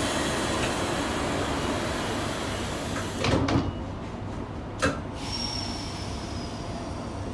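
Sliding passenger doors of a Queensland Rail SMU 220 suburban train closing: a hissing rush as they slide, a heavy thud as they meet about three seconds in, then a sharp click about a second and a half later. A faint high whine follows over the low hum of the stationary train.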